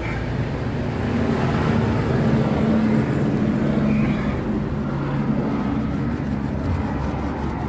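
Wire wool being rubbed over window glass and its metal frame, against a steady low mechanical drone.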